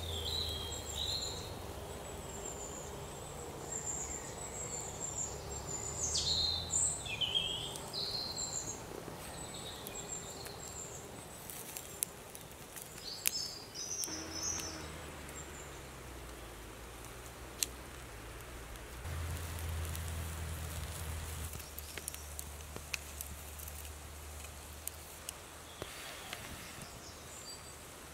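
Outdoor forest ambience: birds chirping and whistling, mostly in the first half, over a low steady rumble, with a few sharp pops from the wood fire.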